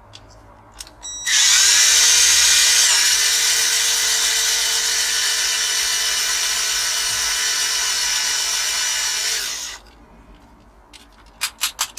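Small electric drill drilling out the rivet holding a diecast model car together. It runs steadily with a high whine for about eight seconds and cuts off suddenly. A few light clicks follow near the end.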